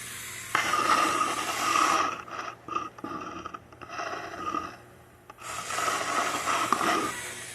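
Battery-powered door mechanism of a 3D-printed model vehicle running twice. It runs for about a second and a half as the door opens, then again after a pause of about three seconds as it closes.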